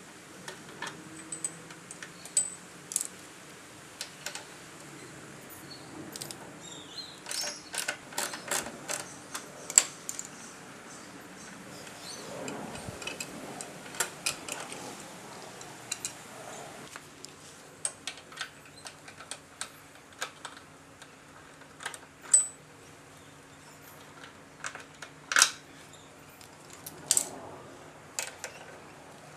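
Sporadic light metallic clicks and clinks of hand tools and metal parts being handled, denser for a few seconds about a quarter of the way in, over a faint steady hum.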